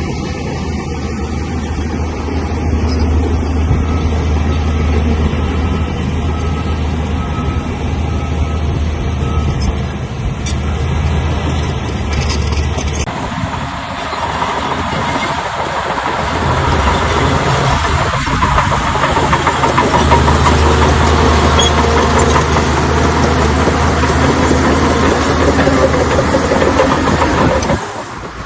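Heavy diesel engine of an earth-moving machine running steadily with a deep hum. About halfway through it turns louder and rougher, with more clatter and noise.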